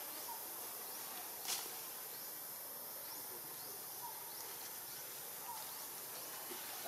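Outdoor ambience: a steady high-pitched hiss with a few faint, short chirps and a single sharp click about a second and a half in.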